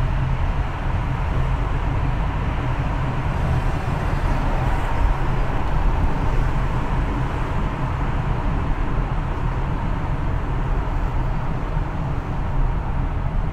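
Steady road noise of a car being driven: a low, even rumble of tyres and engine that holds level throughout.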